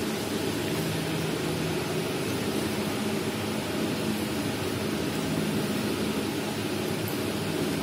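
Steam-heated jam cooking mixer running: its stirrer drive gives a steady low hum over a constant even noise while the scraper arms turn through the fruit pulp.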